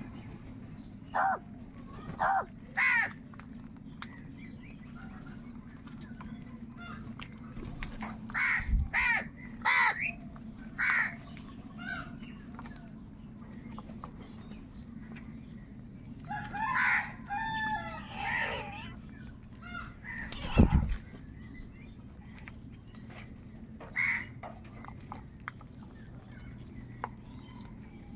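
Crows cawing: short harsh calls, some single and some in quick runs of two or three, with a longer, more drawn-out call past the middle. A steady low hum runs underneath, and one sharp knock comes about three-quarters of the way through.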